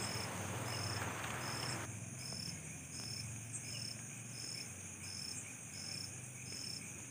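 A cricket chirping steadily, one short high chirp about every two-thirds of a second. It sits over a faint hiss that drops away about two seconds in.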